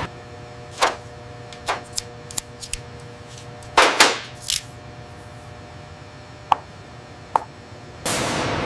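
A scatter of short, sharp clicks and knocks over a faint steady hum. The loudest cluster comes about four seconds in, with two lone clicks later. Just before the end a steady rushing noise starts suddenly.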